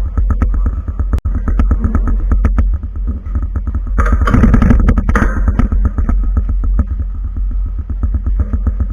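Rapid clicking and clacking of a 4x4 speedcube being turned quickly during a timed solve, many turns a second, over a constant low rumble. The turning gets louder and denser for a second or so midway.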